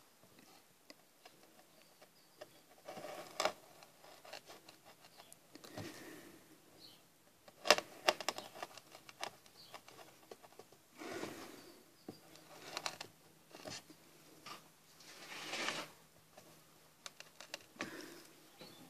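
Flat wood chisel pushed by hand through softwood: short scraping cuts lasting about half a second to a second, between scattered small clicks and knocks, with one sharper knock about eight seconds in.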